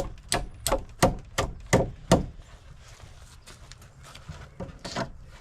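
A quick, even run of sharp knocks on wooden deck boards, about three a second for two seconds, then a few lighter clicks and one more knock near the end.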